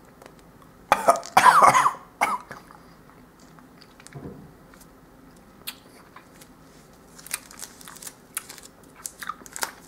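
A person chewing a mouthful of chewy sweet bar. There is a loud cough-like throat noise about a second in, then wet mouth clicks and smacks near the end.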